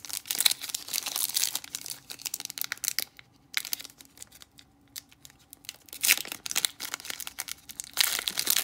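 Plastic wrapper of a Panini football card pack being torn open by hand, crinkling and ripping in irregular bursts with short pauses.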